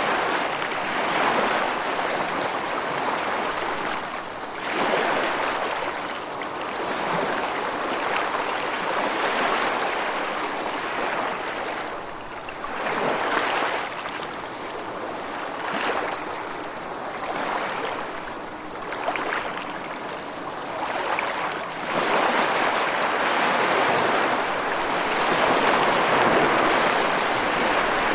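Rushing water, a steady hiss that swells and eases every few seconds, louder over the last few seconds.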